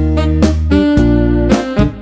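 Instrumental background music: plucked notes changing about twice a second over a steady bass line.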